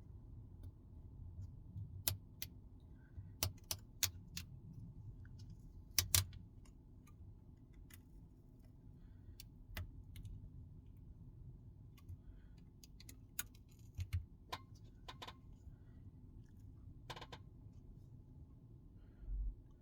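Scattered sharp clicks and taps of small repair tools against the parts of a phone being taken apart, about a dozen, irregularly spaced, over a low steady hum.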